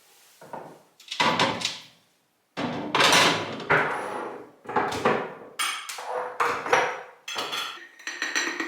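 Food storage containers and jars being set down and moved about on fridge shelves: a quick, uneven run of knocks and clatters, some ringing briefly.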